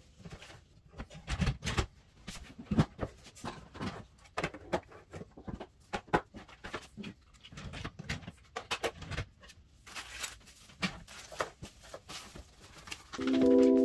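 Irregular clicks, taps and soft knocks of objects being handled, with music coming in just before the end.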